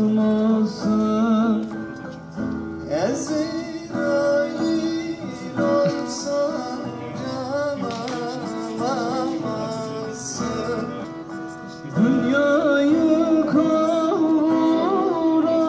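Live Turkish folk song: a man singing into a microphone over acoustic guitar and a long-necked lute. It is softer through the middle and comes back loud about twelve seconds in.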